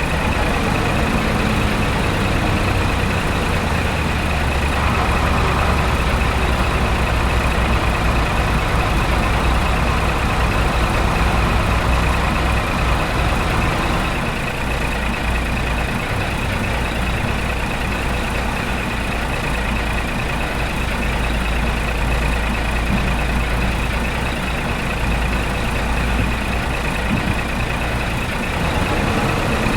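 A truck engine running steadily, with a low hum, getting slightly quieter about halfway through.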